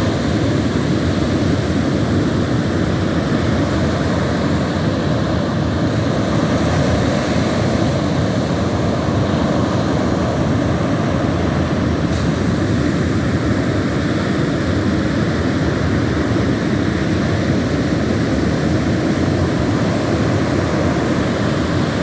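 Ocean surf breaking on a sandy beach: a steady, deep rush of waves with no single crash standing out.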